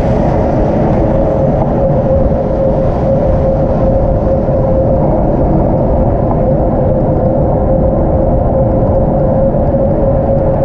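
Steady wind and road noise from riding a bicycle, a loud low rumble on the microphone with a constant hum above it.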